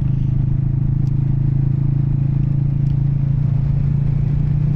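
Royal Enfield Classic 350's single-cylinder engine running at steady revs while riding, with a low rumble from the road and wind underneath.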